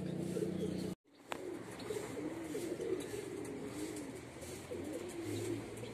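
Domestic homing pigeons cooing: a string of low coos that rise and fall in pitch, repeating throughout. The sound drops out briefly about a second in.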